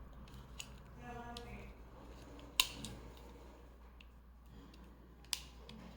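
Sharp metal clicks from a hand crimping tool being handled: three distinct clicks, the loudest about two and a half seconds in, with a few lighter ticks between.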